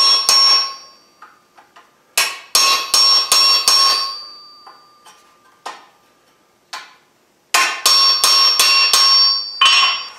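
Hand hammer striking a chisel held on a mild steel bar over an anvil, walking the chisel along a scored line to start a slit. The blows come in runs of about five, roughly two a second, with pauses of a few seconds between runs. Each blow rings with a clear metallic tone.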